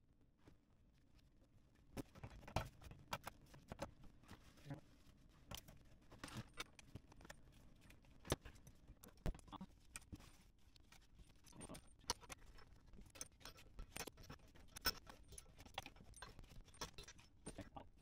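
Faint, irregular clicks and clinks of metal plumbing fittings and braided stainless-steel water lines being handled by hand, starting about two seconds in.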